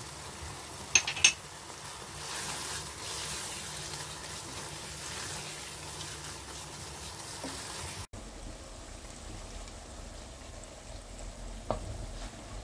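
Keema frying with a soft sizzle as a spoon stirs it round a nonstick pan. There are two sharp knocks of the spoon about a second in, and one more knock near the end as fried onions are scraped off a plate into the pan.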